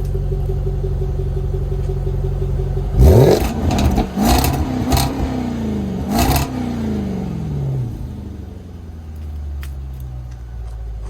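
Jaguar F-Pace SVR's supercharged 5.0-litre V8 idling through its opened sport exhaust, then blipped three times starting about three seconds in. Each rev rises and falls in pitch, and sharp pops and crackles from the exhaust come with the blips. It settles back to a quieter idle for the last few seconds.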